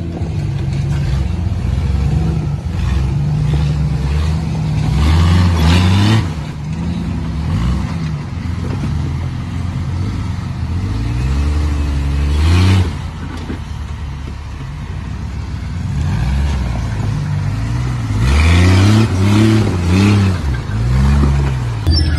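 Rock-crawling Jeep's engine running under load, revving up and dropping back in repeated bursts as it climbs over rocks. There is a run of quick revs near the end.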